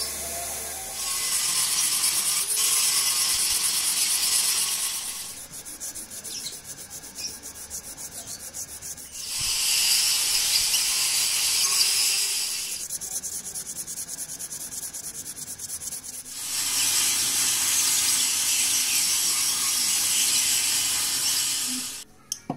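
Octagonal wooden knife handle sanded by hand on a sheet of sandpaper laid flat. Three loud stretches of steady scratchy sanding, each a few seconds long, alternate with quieter, lighter rubbing, and the sanding stops shortly before the end.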